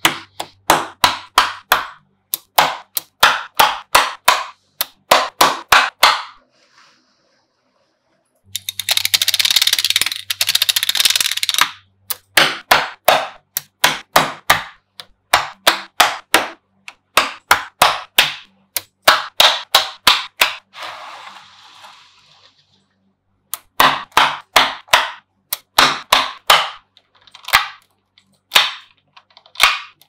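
Small magnetic balls clicking sharply into place one after another as they are pressed onto a block of balls, in quick runs of about three or four clicks a second. About eight seconds in, a dense rattling clatter of many balls lasts for a few seconds.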